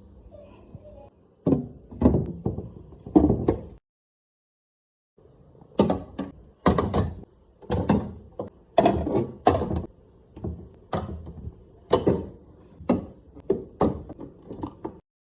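Irregular knocks and clunks of items and containers being set onto fridge shelves and the fridge door handled. The sound breaks off to dead silence for over a second and then resumes.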